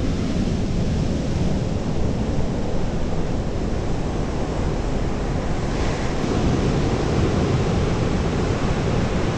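Surf washing onto a sandy beach, with wind rumbling on the microphone. A wave rushes in about six seconds in.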